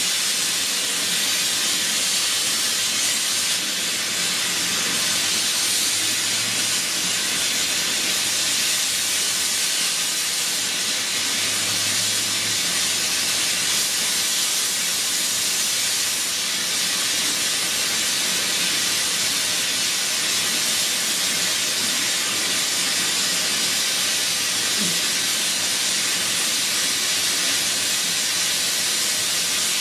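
A loud, steady hiss that holds evenly throughout, with no hammer blows or rhythm in it.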